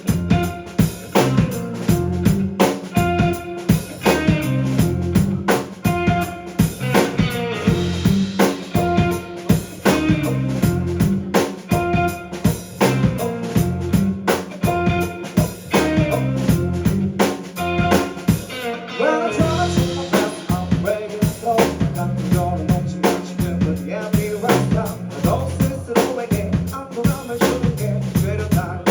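Live indie band playing a song: a drum kit keeps a steady beat under bass and other pitched instruments, with a brief break in the low end about nineteen seconds in.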